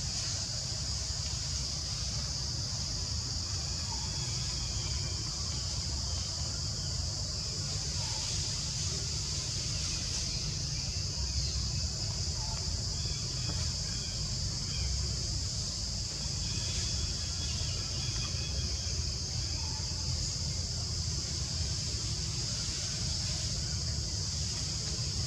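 A steady high-pitched insect drone over a constant low rumble, with faint brief chirps here and there.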